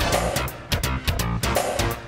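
Background music with drums and guitar over a steady beat.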